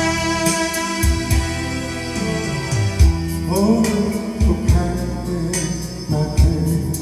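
Instrumental intro of a Korean pop ballad. A saxophone plays the melody, with bending notes, over keyboard accompaniment and a drum beat.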